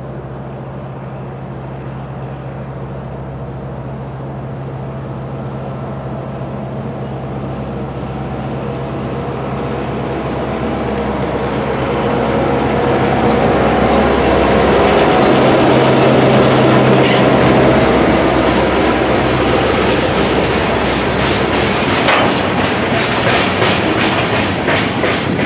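Norfolk Southern diesel locomotive approaching and passing with its engine running steadily, growing louder as it nears. Loaded tank cars follow, their wheels clicking rhythmically over the rail joints.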